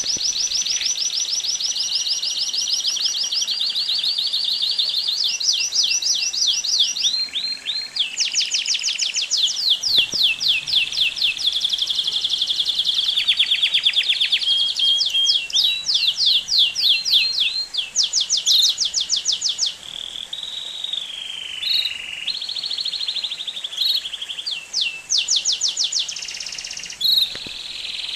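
Belgian canary singing a long, unbroken song of rapid trills, each a run of quickly repeated high notes, switching to a new trill every second or two. About two-thirds of the way through it drops to quieter, smoother gliding notes before the fast trills return.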